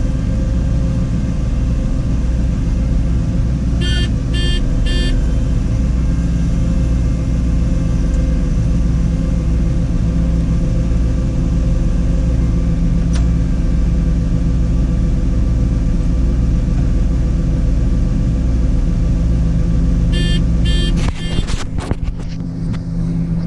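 Combine harvester running steadily while harvesting soybeans, heard from inside the cab as a loud, even engine and machinery hum. Three short beeps sound about four seconds in and again near the end, followed by a few knocks.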